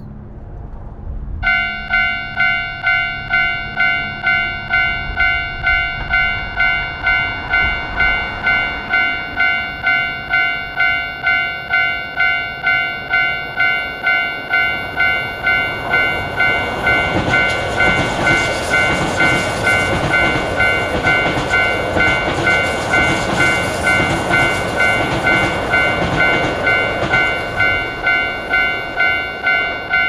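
Japanese railroad crossing warning bell starting about a second and a half in and ringing steadily about twice a second, signalling an approaching train. From about halfway, the rumble and rail noise of a passing electric commuter train swell under the bell.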